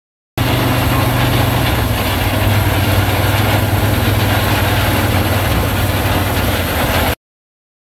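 John Deere S-Series combine running under load while harvesting corn: a steady low engine drone under a broad rushing noise. It starts abruptly just after the start and cuts off suddenly near the end.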